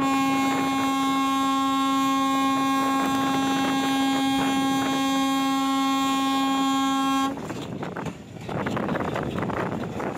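Locomotive air horn giving one long, steady blast that cuts off suddenly about seven seconds in. After it comes the noise of the moving train, with wind on the microphone.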